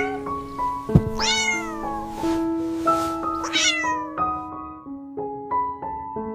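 A cat meowing twice, about a second in and again about halfway through, over soft piano music. There is a short thump just before the first meow.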